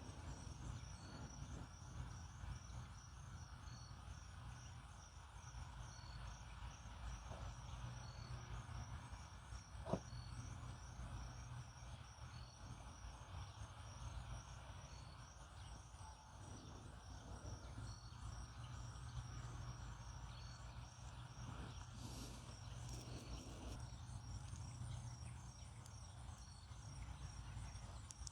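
Faint background hum with a steady, regular high-pitched chirping and a soft beep repeating about every two seconds; a single light click about ten seconds in.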